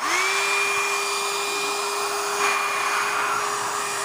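Handheld electric hot-air blower switched on, its fan spinning up in a fraction of a second and then running steadily with a whine over the rush of air. It is pressed against the phone's back cover, heating it to soften the adhesive before prying it off.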